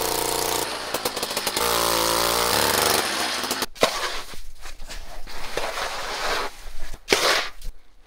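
A cordless drill whines in two runs of about a second each, screwing ice anchors into the ice. Then a shovel scrapes and scoops loose snow and ice chips, with a few sharp knocks.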